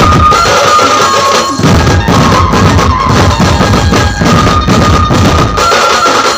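A band of dhol drums played with sticks, pounding out a fast, loud, dense rhythm, with a high melody line held and shifting in pitch above the drums.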